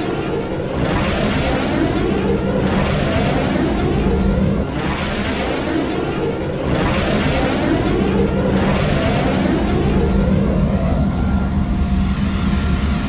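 Sci-fi sound effect of space fighters launching: a rushing jet-like roar that swells and sweeps about every two seconds over a steady low engine hum.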